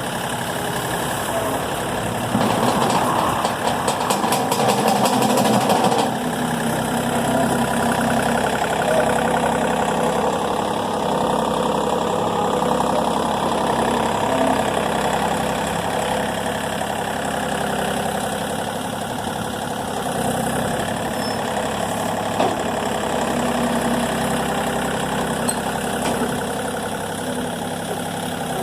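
Vehicle engine running steadily, louder and fuller for about four seconds starting about two seconds in.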